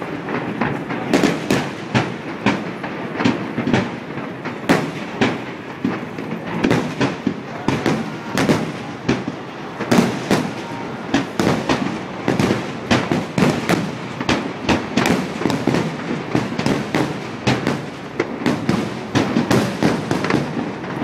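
Fireworks display: a dense, unbroken barrage of bangs and crackles, several a second, with no pause.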